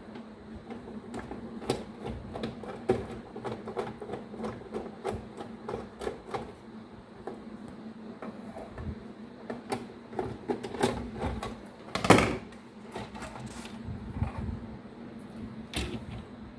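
Irregular small clicks and knocks from a screwdriver and the juicer-blender's plastic housing being handled as it is taken apart, with one louder knock about twelve seconds in. A faint steady hum runs underneath.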